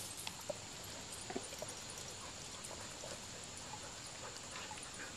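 A Doberman whining a few times, soft and short, over a steady faint hiss.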